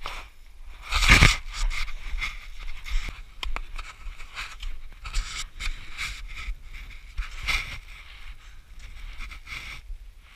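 Climbing footsteps crunching and scraping in firm, wind-crusted snow on a steep slope. The steps are irregular, roughly one a second, with the loudest scrape about a second in.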